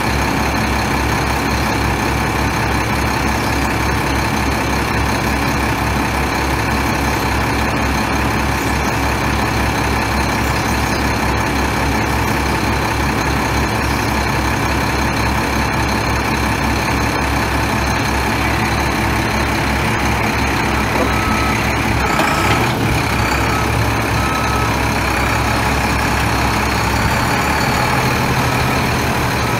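The Cummins ISC 8.3-litre inline-six turbo diesel of a Freightliner FLD dump truck idles steadily with an even low pulse. About two-thirds of the way through, the engine note shifts and a few short high beeps sound on and off.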